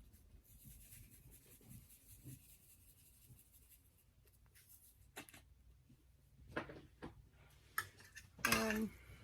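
Soft scraping and rubbing with a few light clicks, from a utensil stirring instant ramen noodles in a pot. A brief voice-like sound comes near the end.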